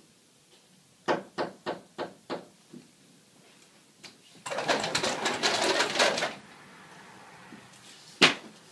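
Five quick knocks, then a sliding glass patio door rolling open along its track for about two seconds, and a single sharp bang near the end.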